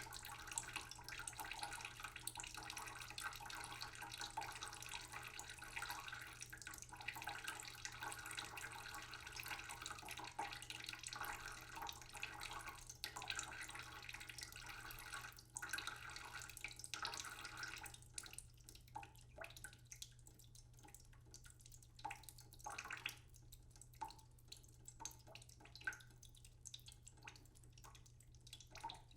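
Water from a tap trickling slowly into a cooking pot in a sink, a steady splashing run; about two-thirds of the way through the flow thins out to scattered drips and small splashes.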